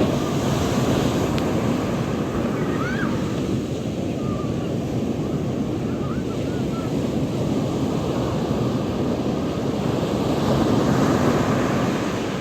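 Sea surf washing onto the beach in a steady, continuous rush, with wind buffeting the microphone; the wash swells a little louder near the end.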